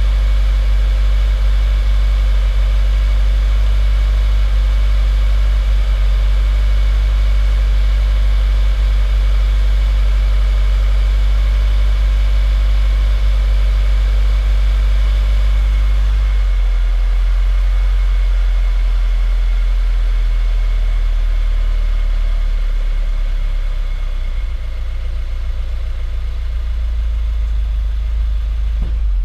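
2015 Subaru WRX's turbocharged 2.0-litre flat-four idling steadily, its low note stepping down about halfway through.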